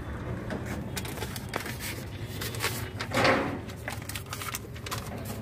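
Light clicks and knocks of utensils and handling at a street food stall, over a steady background hum. A brief louder rushing noise comes about three seconds in.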